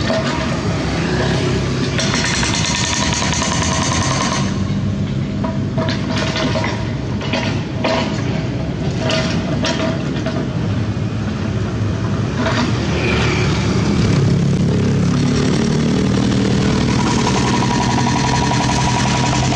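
Vehicle engines running steadily with street traffic. In the last few seconds a steady diesel engine hum from the dump truck and mini excavator working.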